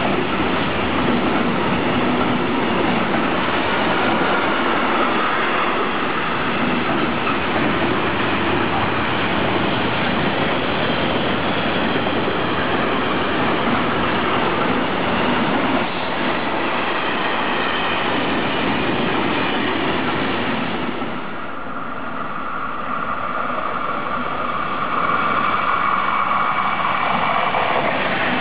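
Long intermodal freight train of swap-body wagons rolling past, with a steady rumble and rattle of wheels on rail. About three-quarters of the way through, the sound dips briefly and gives way to a passing regional train of coaches, with a steady high whine over the rolling noise.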